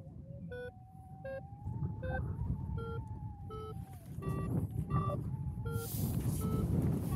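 A paragliding variometer beeping short tones at changing pitch, about three beeps every two seconds, with a steady wavering tone underneath, over wind noise on the microphone. Near the end a louder rushing noise comes in as the pilot lands on the grass.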